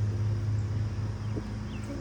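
Honeybees buzzing steadily as a low, even hum around the open hive, with a few faint bird chirps.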